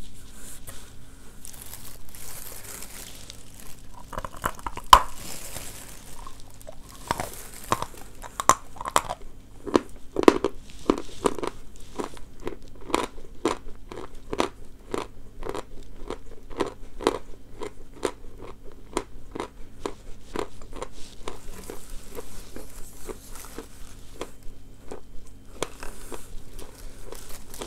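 A lump of natural Valuyki chalk being bitten and chewed. A sharp crack of the bite comes about five seconds in, then crunchy chewing goes on at about two chews a second for some fifteen seconds and grows quieter near the end.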